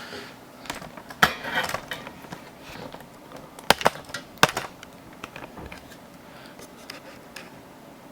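Sharp metallic clicks and knocks of computer hardware being handled: a few scattered taps, with the loudest about a second in and three more close together near the middle.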